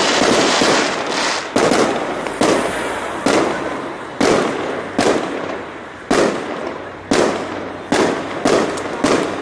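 Aerial fireworks in a continuous display: about ten bangs of shells bursting, roughly one a second, each fading out before the next one goes off.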